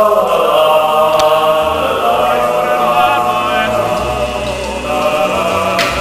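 Music of sung voices holding long notes with vibrato, choral in character.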